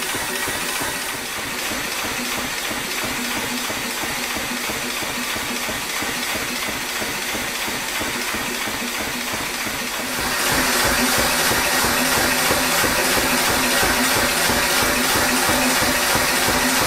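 Massey pneumatic power hammer running idle, its motor and air compressor chugging with a rapid regular pulse and a hiss of air. It grows louder about ten seconds in.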